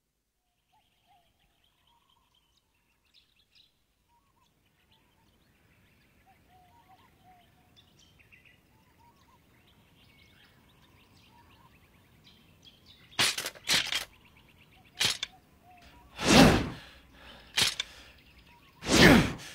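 Faint birds chirping, then from about two-thirds of the way through, a long sword swung hard several times, each swing a loud whoosh through the air: three quick swishes close together, then single ones, the longest and loudest near the end.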